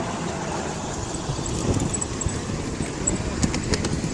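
Miniature railway train running, heard from on board: a steady rumble from the train on the track, with a few sharp clicks near the end.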